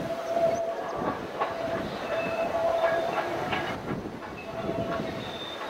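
Steam train of ex-Queensland Railways locomotive 218A heard at a distance: rumble and clatter of the train, with a steady high tone that breaks off and comes back.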